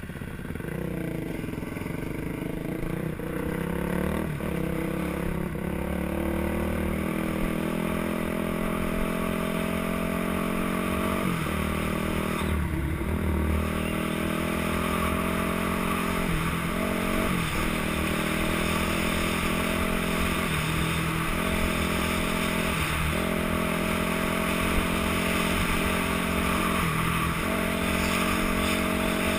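Dirt bike engine pulling along a gravel trail. It climbs in pitch over the first several seconds, then runs steadily with brief dips in engine speed every few seconds.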